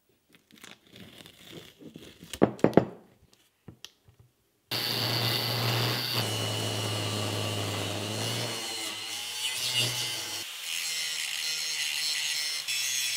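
Pencil scratching on masking tape, with a few handling knocks. About five seconds in, an angle grinder starts suddenly and cuts, then grinds, a stainless steel plate with a steady hum and hiss. Its tone changes a little about ten seconds in.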